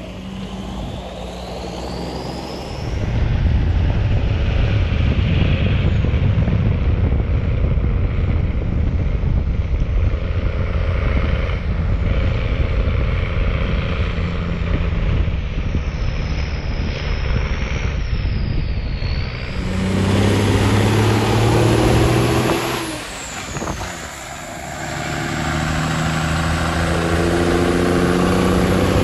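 M35 deuce-and-a-half army truck's multi-fuel engine running under way. Near the end it revs up twice with a climbing pitch, easing off briefly between the two.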